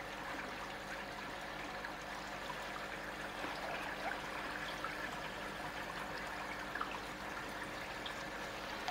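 Koi pond water trickling steadily, with a faint low hum beneath it.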